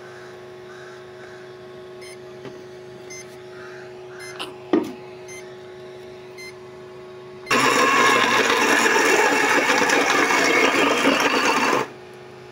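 Homemade 12 V DC blender, its motor driven through an ESC, blending onions in water in one burst of about four seconds that starts about seven and a half seconds in and stops sharply. Before the burst there is only a faint steady hum and a few small clicks.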